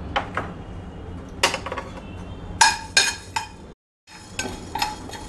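A metal spoon clinks and scrapes against a stainless steel frying pan while stirring urad dal as it dry-roasts, in a series of short, ringing strikes. The sound drops out completely for a moment a little past the middle.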